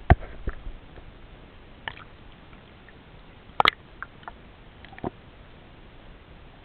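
A few scattered sharp knocks and taps, consistent with paddling a kayak. The loudest comes just after the start, and a quick double knock comes about three and a half seconds in.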